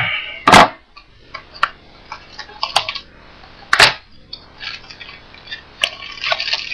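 Cardboard trading-card box and its packs being handled and opened by hand: a run of taps and clicks, with two sharp knocks about half a second in and near four seconds, and denser rustling near the end.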